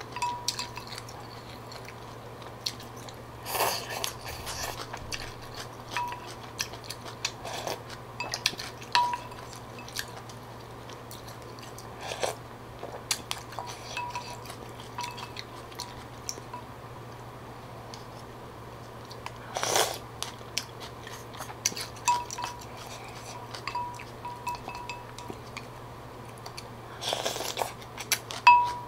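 Close-up eating of phở: wooden chopsticks and a wooden spoon click and knock against a ceramic bowl, which gives a short ringing note at many of the knocks. Several slurps of noodles and broth and quiet chewing come in between, over a steady low hum.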